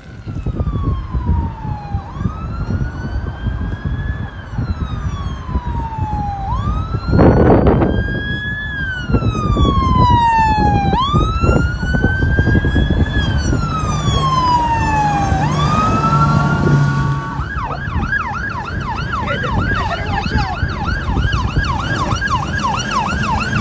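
Police boat siren sounding as the boat speeds past: a slow wail rising and falling every few seconds, switching about 17 seconds in to a fast yelp of about four sweeps a second, over a steady low rumble. A brief loud rush of noise comes about seven seconds in.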